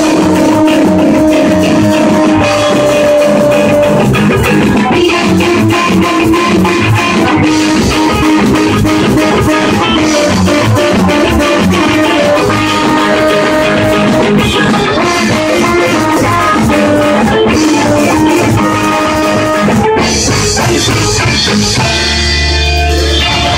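Ska band playing live: electric guitar, trombone, saxophone and drum kit over a steady beat. Near the end the band stops briefly, then holds a long final chord.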